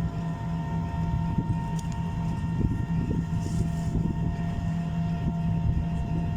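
A motor vehicle's engine running at a steady pitch, with a dense low rumble beneath it.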